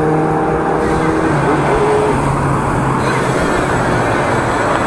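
Road traffic heard from a moving bicycle, with a steady rush of wind over the microphone; a motor vehicle's engine hum is clear for the first second or so, then drops away.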